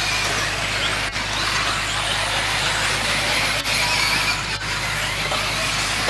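Several 1/10 scale electric 4WD RC buggies racing on a dirt track. It is a steady mix of high-pitched electric motor whine and tyre-on-dirt noise, with short whines rising and falling as the cars pass.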